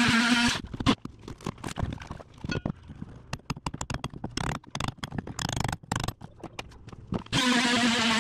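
A cordless oscillating multi-tool runs for the first half second and stops. Then comes a run of irregular knocks and taps as a hammer drives a chisel into rotted marine plywood. About seven seconds in, the multi-tool starts again with a steady buzz.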